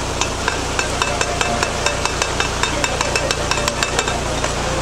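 Canal lock paddle gear being wound, its ratchet pawl giving a run of sharp metallic clicks a few times a second, over the steady rush of water leaking through the lock gate.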